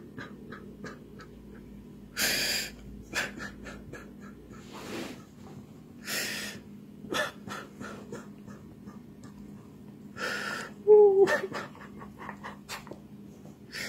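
A man sobbing into his hand, with several sharp gasping, sniffling breaths, while a dachshund sniffs and licks at his face with small wet clicks. A short wavering whine comes near the end.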